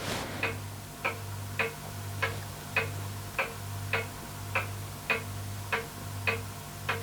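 Steady, evenly spaced mechanical ticking, a little under two ticks a second, over a low steady hum.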